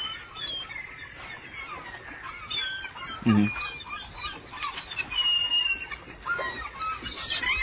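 Seagulls calling, many short cries overlapping.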